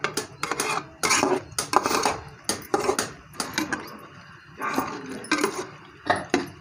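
Metal spoon scraping and clinking against a cooking pot as chicken pieces in masala and water are stirred. It goes in quick, irregular strokes, with a few longer scrapes.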